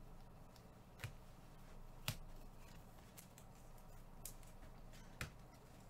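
Near silence: a low steady hum with faint sharp clicks about once a second.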